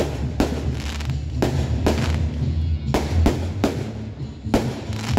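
Aerial firework shells bursting in quick succession, about a dozen sharp bangs over five seconds, with music and a steady bass playing underneath.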